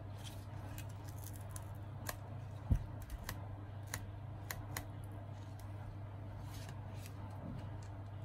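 Handling of a crushed, shattered Samsung smartphone: scattered small clicks and crackles of cracked screen glass and the bent frame under the fingers, with one louder dull knock a little under three seconds in, over a steady low hum.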